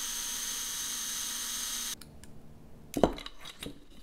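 DeWalt 20V cordless drill running at a steady speed with its bit in the rim of a black plastic speaker tube, stopping abruptly about two seconds in. A few light knocks of parts being handled on the bench follow, the loudest about a second later.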